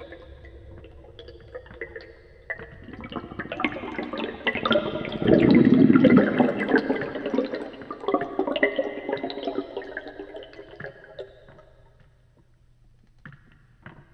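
Air from a tire pump bubbling underwater, heard through a hydrophone with added reverb. A burst of bubbling swells to its loudest in the middle, then dies away, and a new burst starts near the end.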